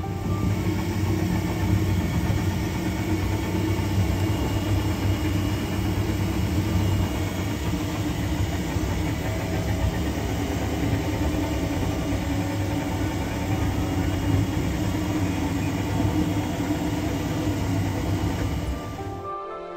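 Small tractor engine running steadily with a low hum, under outdoor noise; the sound cuts off abruptly near the end.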